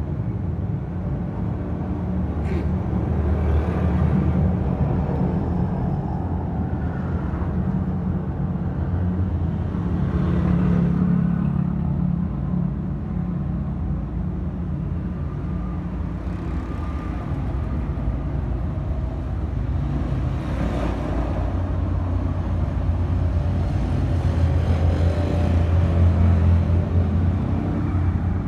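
Street traffic rumbling steadily, swelling several times as motorcycles and other small vehicles pass close by.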